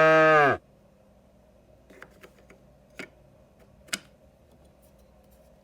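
The tail of a cow's moo, one held call that cuts off about half a second in, followed by a few light clicks and knocks from wooden puzzle pieces being handled.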